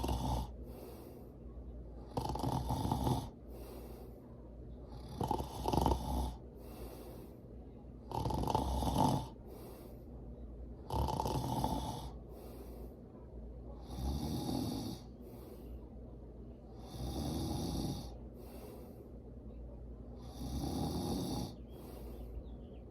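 A sleeping person snoring in a slow, regular rhythm, with a loud snore about every three seconds, eight in all.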